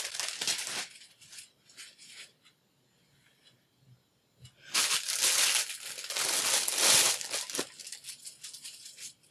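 Plastic packaging wrapper crinkling and rustling: a brief rustle at the start, then a louder stretch of crinkling lasting about three seconds from near the middle.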